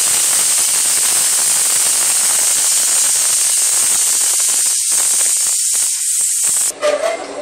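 Steady, loud hiss from the gas stove that cuts off abruptly near the end.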